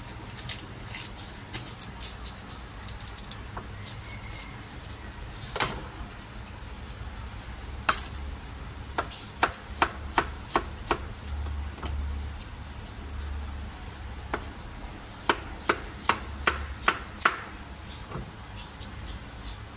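Large kitchen knife chopping young baby corn on a plastic cutting board: scattered knife strikes at first, then two quick runs of about five or six chops each, one in the middle and one later.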